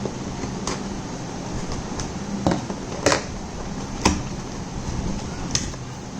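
An Amazon delivery package being handled and opened by hand: about five short, sharp crinkles and taps, spread over a few seconds, over a steady low hum.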